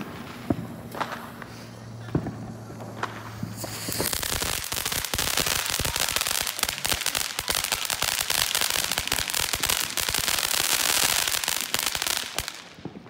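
Ground fountain firework spraying sparks: after a few scattered pops, it bursts into a dense crackling hiss about four seconds in, which fades out near the end.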